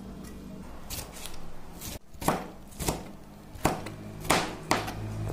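Kitchen knife chopping tomatoes on a plastic cutting board: a string of separate, uneven blade strikes, about eight in all.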